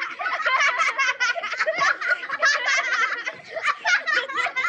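A young child laughing hard: a rapid run of short, high-pitched giggles, several a second.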